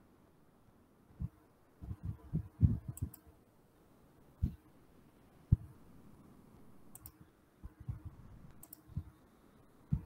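Irregular soft clicks and low thumps of computer mouse and desk handling, heard faintly through a video-call microphone.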